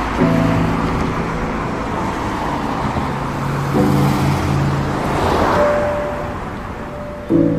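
Background music: sustained synth chords that change every few seconds, over a swelling and fading whooshing wash.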